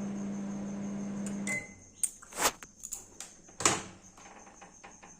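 Microwave oven running with a steady hum that cuts off about a second and a half in as it is switched off, followed by a short beep and then two loud clunks and a few lighter clicks from the oven.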